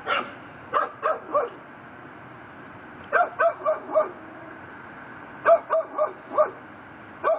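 Pit bull barking in quick runs of three or four barks, with pauses of a second or more between the runs, over a steady faint hiss.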